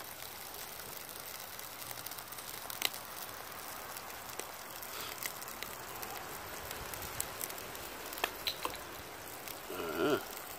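Small wood fire crackling under a cast-iron pot of sauce: a steady low hiss broken by scattered sharp pops. A brief pitched sound, the loudest moment, comes near the end.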